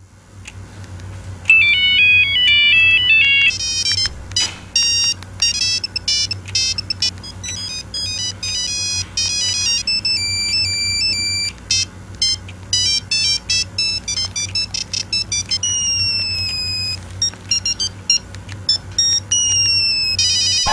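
Mobile-phone ringtone melody made of fast, high-pitched electronic beeps, starting about a second and a half in, with a few downward-gliding tones near the end, over a low steady hum.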